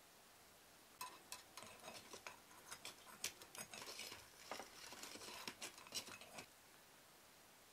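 Long metal fire tongs poking and shifting lumps of charcoal under a wire grill in a charcoal brazier: a quick, irregular run of clinks, taps and scrapes that starts about a second in and stops about six and a half seconds in.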